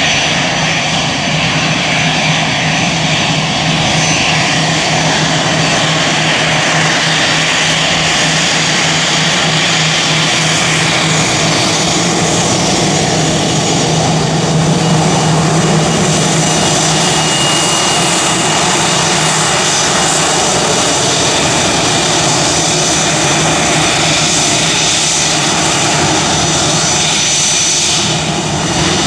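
Airbus A320-family airliner's twin jet engines running at taxi power as it rolls slowly past, a steady loud rumble with a low hum and thin high-pitched whistling whine on top.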